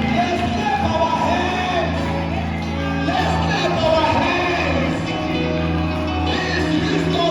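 Church praise music: voices singing over steady, held bass notes.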